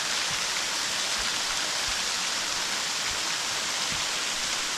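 Steady rush of a steep mountain creek tumbling over small waterfalls and cascades.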